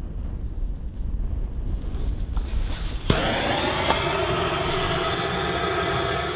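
Low wind rumble on the microphone, then about three seconds in a click and the steady hiss of a handheld gas torch's flame jet firing into kindling in a wood stove.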